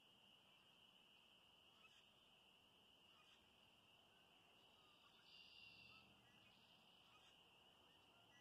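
Very faint, steady high-pitched chorus of small animals calling from the marsh, with one brief, somewhat louder sound about five and a half seconds in.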